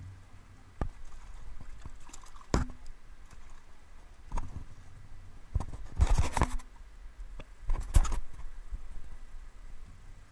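Irregular splashes, drips and knocks as water pours from a dip net of trout into a plastic bucket beside a stocking truck's tank, with the busiest splashing about six and eight seconds in.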